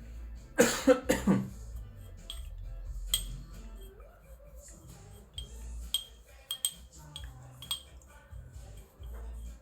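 A person with a cold coughing twice, about a second in, then scattered light clinks of glassware over background music.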